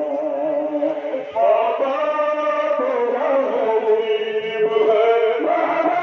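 Male voices chanting a Muharram mourning lament (noha) in long held notes, the melody moving to a new note every second or so.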